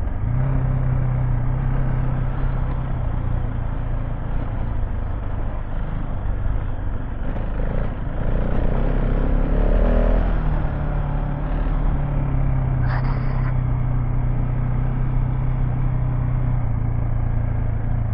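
KTM 690 Enduro R's single-cylinder engine running under way at a fairly steady pace over a constant rush of noise. The engine note changes briefly about halfway through, and a short sharp click comes a few seconds later.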